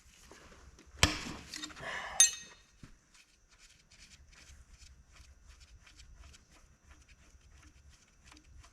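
Steel hand tools on engine hardware: a sharp metal clank about a second in and a ringing metal clink just after two seconds, then faint, rapid, even ticking.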